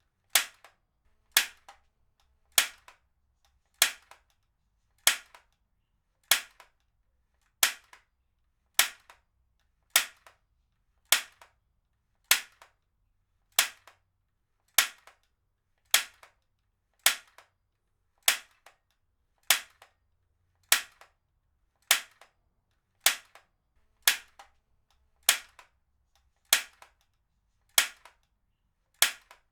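Heavy-duty stapler firing repeatedly, a sharp snap about every second and a quarter, each followed shortly by a much fainter click.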